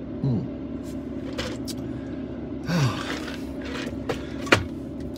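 Steady low hum inside a parked car with the engine running. A man gives two short breathy murmurs that fall in pitch, and there is a sharp click near the end.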